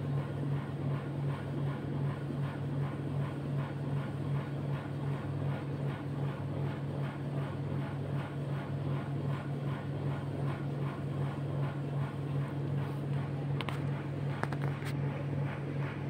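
A steady motor hum with an even pulse of about two to three beats a second, and a few light clicks near the end.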